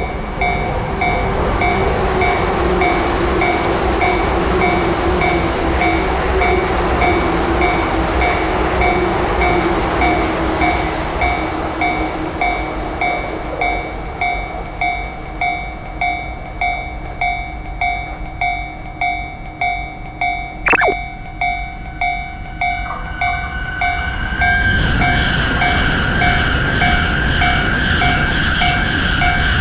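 Japanese railroad crossing alarm ringing a steady, evenly repeating ding, a bit over one ring a second, while trains rumble past. One train passes at the start, and another arrives about three-quarters of the way through with a steady higher whine. A brief falling sweep sounds about two-thirds of the way in.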